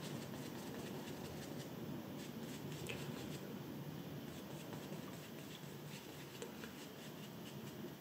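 Large flat paintbrush stroking diluted gouache across paper: a faint, soft brushing with a few light ticks.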